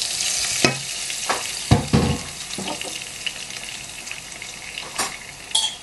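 Shrimp sizzling in hot oil in a saucepan, the sizzle fading over the first few seconds as they settle, while a wooden spatula stirs them with several scrapes and knocks against the pan, the loudest a low thump about two seconds in.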